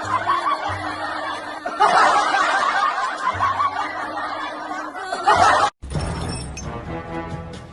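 Snickering and laughter over background music. The sound cuts out for an instant about six seconds in, and a different track with a steady low hum follows.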